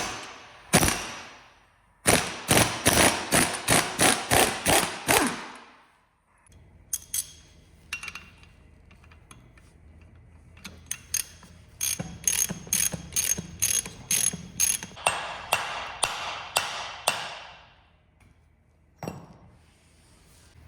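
Ratchet wrench clicking in two long runs of quick, even clicks as bolts are worked on the transmission casing, with a few single sharp clicks besides.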